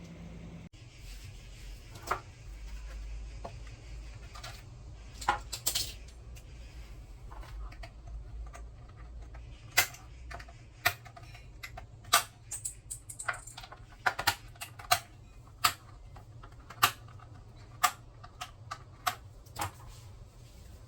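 A series of irregular sharp clicks and knocks, a dozen or more spread unevenly, over a low steady hum.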